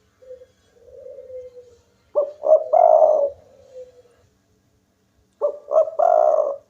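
Spotted dove cooing: a soft low coo, then its loud call twice, about 2 s and 5.5 s in, each two short notes followed by a longer rolling note.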